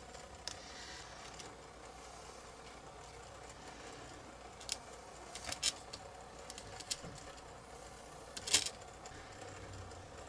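Light, sparse clicks and taps from a plastic cup and a wooden stick handled against a plastic mould box while thick silicone rubber is poured, over a faint steady hum. There is a small cluster of clicks around the middle and the sharpest tap near the end.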